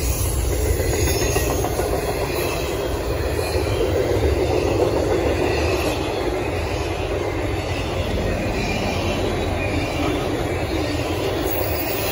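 Cars of a double-stack intermodal freight train rolling past at close range: a steady rumble of steel wheels on the rails.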